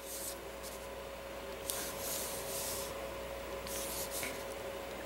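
Brush tip of a blender pen rubbing across paper in three short strokes, the middle one the longest, as ink is blended out on a stamped image.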